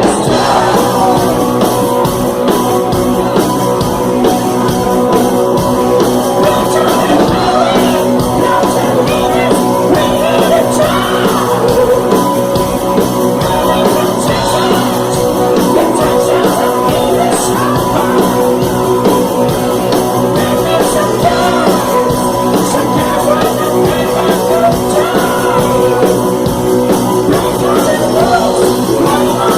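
Loud rock music with electric guitar and singing, playing steadily throughout.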